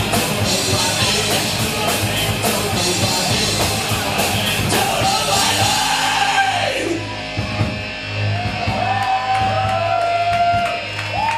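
Heavy rock music: distorted electric guitar, drums and yelled vocals. About seven seconds in the drums drop out, leaving held, sliding notes over a steady low hum.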